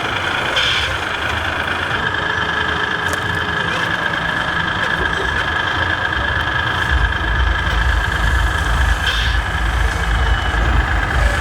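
Simulated diesel truck engine idling from an RC model truck's sound module, with a deeper pulsing engine rumble coming in about seven seconds in.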